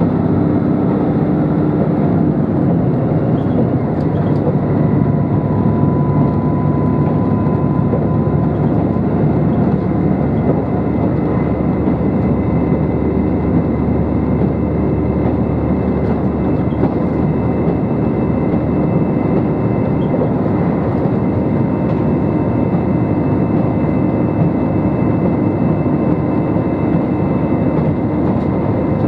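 Steady running noise inside a JR Shikoku 2700 series diesel express railcar at speed: a continuous low rumble of engine and wheels on rail, with a faint high whine over it.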